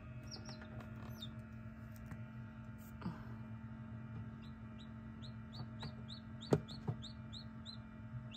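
Newly hatched chicks peeping inside an egg incubator: short, high, falling peeps, a few near the start and then a steady run of about three a second in the second half, over a steady low hum. Two sharp knocks come about two-thirds of the way in.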